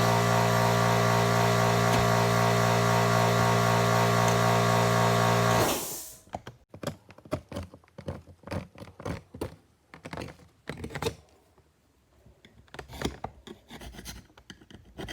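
Die grinder running steadily while roughening cured epoxy filler, then switched off about six seconds in. Irregular hand scraping and scratching strokes on the hardened epoxy follow, roughing up the surface so the next fiberglass layer will bond.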